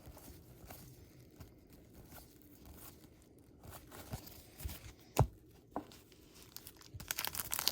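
Trading cards being handled quietly, with a few light clicks. From about seven seconds in comes a louder, continuous crinkling and tearing of a card pack's wrapper.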